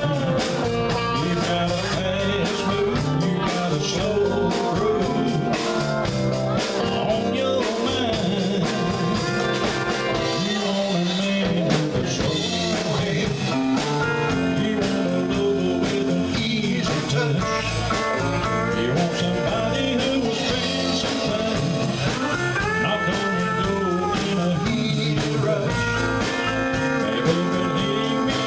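A live band playing bluesy country rock through a PA: electric guitars and drums, with a lead singer.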